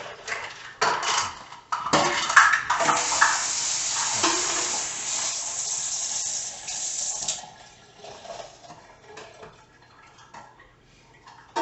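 Utensils and dishes clinking, then a kitchen tap running for about five seconds, as when drawing water to measure it out. After the tap stops there are a few quieter knocks of handling.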